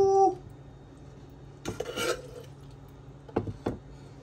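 Cutlery and dishes clattering as food is served onto plates: a short scrape about halfway through, then two sharp clinks close together near the end. A person's held hum trails off at the very start.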